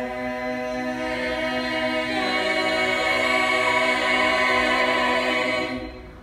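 A group of voices singing a held chord a cappella. The chord changes about two seconds in and is held until it dies away near the end.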